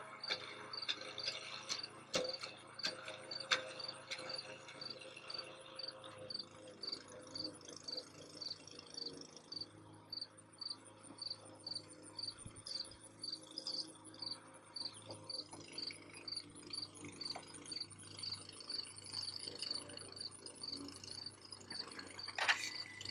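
Insects chirping steadily, a short high chirp repeating about twice a second over a fainter continuous high trill.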